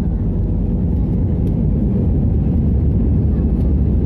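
Airbus A320's CFM56 jet engines and undercarriage rumbling, heard from inside the cabin as the aircraft rolls along the runway, growing slightly louder.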